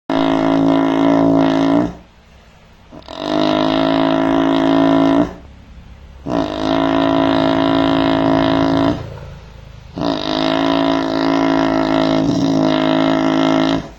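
A sleeping cow snoring: four long, droning snores at a steady pitch, each lasting two to four seconds, with a pause of about a second between them.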